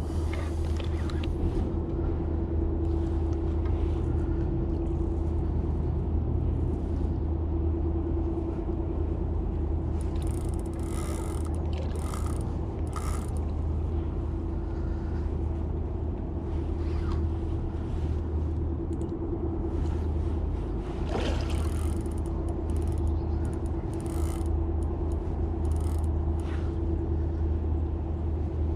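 A boat motor running steadily: a constant low hum with a steady higher tone above it. Scattered short clicks and knocks come through, several between about ten and thirteen seconds in and again near twenty-one and twenty-five seconds in.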